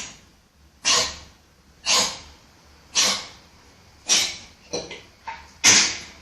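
Dog with kennel cough coughing over and over, harsh dry hacks about once a second. Two weaker coughs come quickly before the last, strong one.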